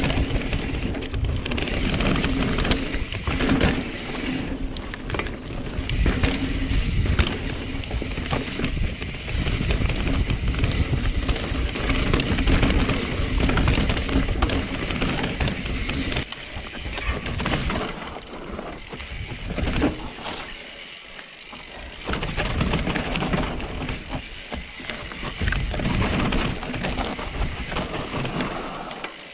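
Full-suspension mountain bike (Norco Sight) riding a dirt trail: tyre roar and rattle over the ground, with the freehub ratcheting and wind rumbling on the camera mic. It eases into quieter, coasting stretches about two-thirds of the way through and again at the end.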